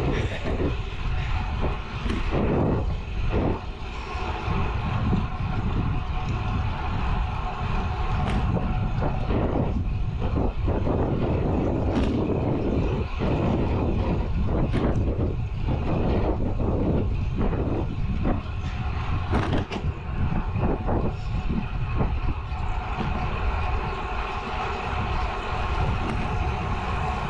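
Wind rushing over the action camera's microphone and road-bike tyres rolling on asphalt at about 30 km/h: a steady, loud rush with occasional short knocks from bumps in the path.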